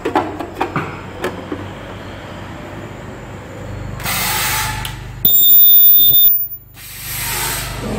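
A plastic part clicking and knocking as it is seated in an aluminium fixture, then a hiss of air as the ultrasonic welding machine's horn presses down. A loud, high-pitched screech for about a second as the ultrasonic weld runs, cutting off suddenly, then another air hiss as the horn lifts.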